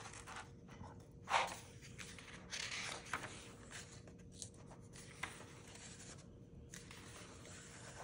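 Pages of a picture book being turned by hand: a few short paper swishes and rustles, the loudest about a second in, with a hand brushing the pages flat.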